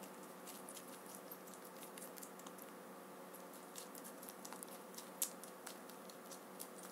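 Rabbit chewing a strawberry: a string of faint, irregular wet clicks from its teeth, with one sharper click about five seconds in, over a steady faint hum.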